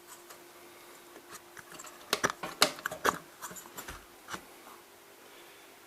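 Small hard pump parts clicking and clattering as the stage pieces of a disassembled submersible pump are handled and set down. The cluster of sharp clicks and light knocks comes about two to four and a half seconds in, over a faint steady hum.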